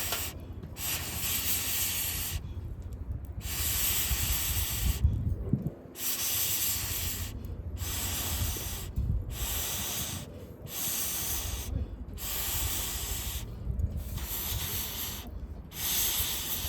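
Air blown in long hissing puffs onto a campfire, about one every second and a half with a short pause for breath between them.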